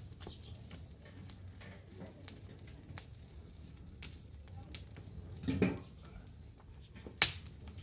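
Open wood fire crackling with scattered small pops over a low rumble of flame, with a couple of louder knocks as burning sticks are pushed about with a stick; the sharpest knock comes near the end.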